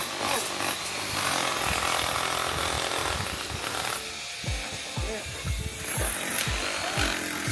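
Construction-site work noise: a dense noisy rasp for the first few seconds, then a run of short low thuds about two a second.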